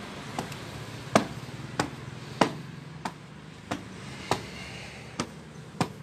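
Footsteps on a hard staircase, a sharp tap about every two-thirds of a second.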